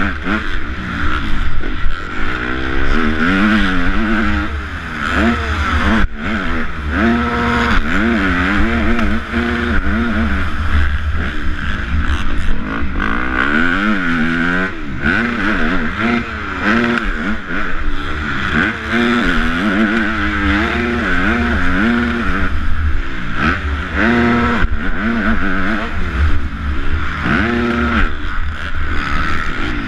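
250cc motocross bike engine at race pace, its pitch climbing and dropping again and again as the throttle is opened and shut through turns and jumps.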